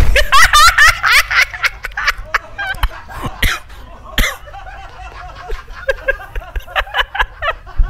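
A loud, high-pitched scream of fright from the person jumped out at, then a man's hard, bursting laughter that goes on in short gasps to the end.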